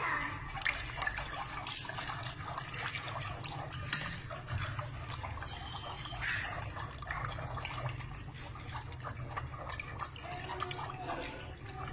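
Long wooden chopsticks stirring kudzu starch and water in an aluminium pot: the liquid swishes and sloshes, with many small sharp clicks throughout.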